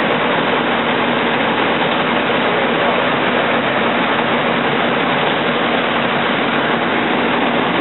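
Fire engine's diesel engine and pump running steadily at a drop tank, a loud, unbroken drone.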